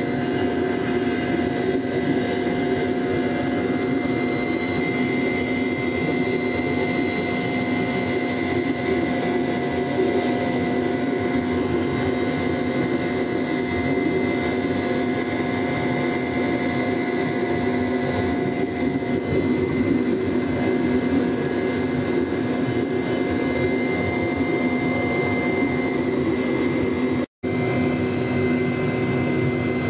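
Steady mechanical drone of an engine or motor with a constant whine, holding the same pitch throughout, broken only by a brief cut near the end.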